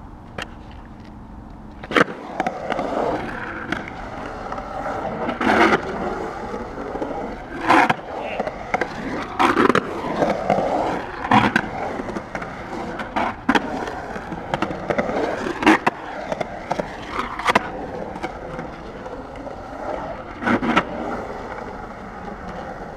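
Skateboard urethane wheels rolling and carving around a concrete bowl, a continuous rumble that starts about two seconds in as the skater drops in, with sharp clacks from the board about every two seconds.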